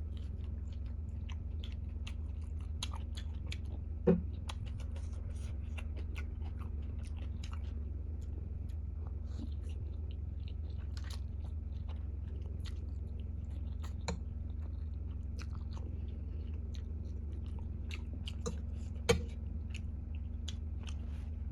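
A person chewing a mouthful of spicy instant noodles close to the microphone, with many small wet mouth clicks over a steady low hum. Two sharp knocks stand out, about four seconds in and near the end.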